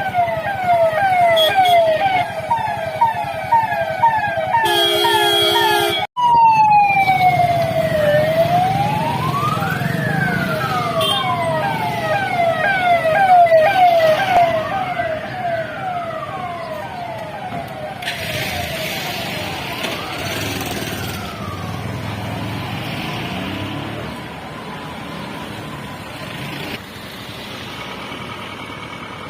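Police vehicle sirens over running engines: a fast yelp sweeping about four times a second, then, after a brief dropout about six seconds in, a slow rising-and-falling wail sounds alongside the yelp. There is a short horn note about five seconds in, and the sirens fade out in the last third, leaving traffic noise.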